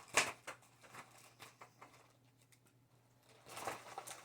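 Light handling noises: fabric and paper rustling with scattered taps, a sharp tap about a fifth of a second in and a longer rustle near the end, as a cross-stitch project is handled.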